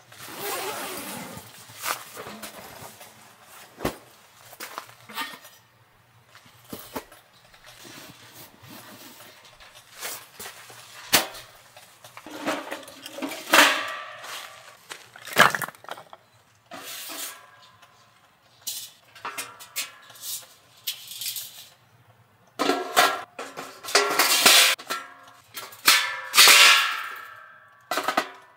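Camping gear being handled: scattered knocks and rustles, then firewood blocks clattering into a stainless steel fire pit. Metal clanks with some ringing come in the last few seconds as its perforated inner basket is fitted.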